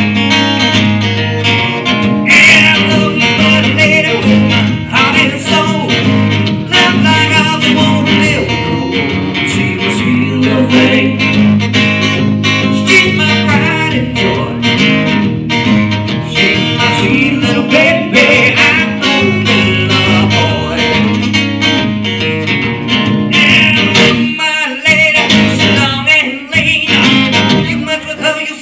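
Live country-style song: an acoustic guitar played with a male voice singing, amplified through PA speakers.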